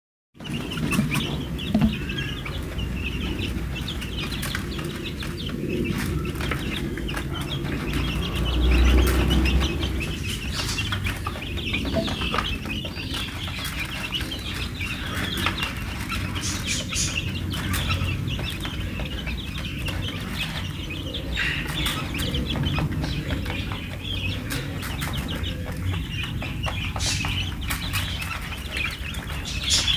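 A flock of two-week-old chicks peeping and cheeping continuously while they peck grain from a plastic feeder tray, with many small sharp ticks among the calls. A brief low rumble about nine seconds in is the loudest moment.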